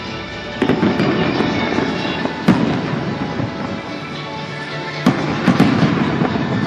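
Fireworks bursting: a series of sharp bangs with crackling, the loudest about two and a half and five seconds in, over steady music.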